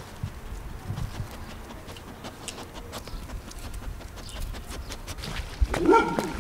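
A dog's paws scratching and digging in loose garden soil: scattered scrapes and soft low thuds. Near the end comes a short whine from the dog, the loudest sound.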